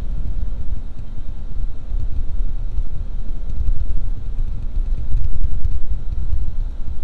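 Low, steady rumble of a car driving slowly in city traffic, heard from inside the cabin.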